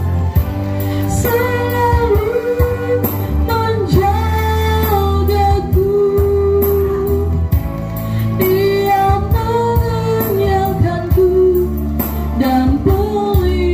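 Background music: a slow Indonesian worship song, a singer holding long, gliding notes over a steady band accompaniment with a strong bass line.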